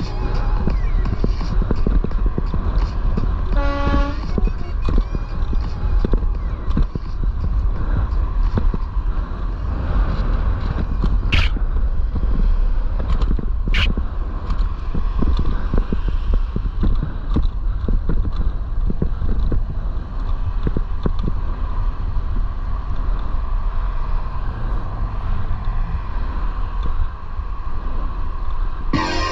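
City traffic heard from a moving bicycle: a steady low rumble of wind and passing vehicles on the microphone. About four seconds in, a vehicle horn gives one short toot. Two brief high squeaks follow later.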